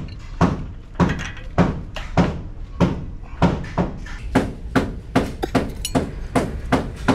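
Repeated hammer blows on metal parts of a truck wheel hub, a steady rhythm of about two strikes a second that quickens slightly in the second half.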